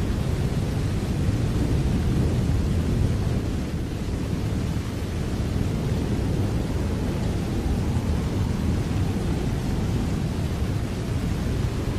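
Steady rain, an unbroken hiss over a strong low rumble that holds at one level without distinct claps.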